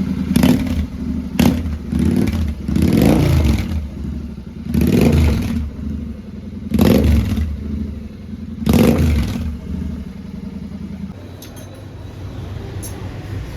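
Royal Enfield Continental GT 650's 648 cc parallel-twin engine running through a Red Rooster Performance exhaust with the dB killers fitted. The throttle is blipped about six times, roughly every two seconds, each rev rising sharply and falling back. Near the end it settles to a steady idle.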